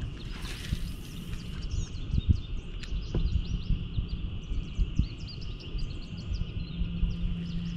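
Outdoor creek ambience: many small bird chirps over a steady high-pitched drone, with a low rumble and a few soft knocks.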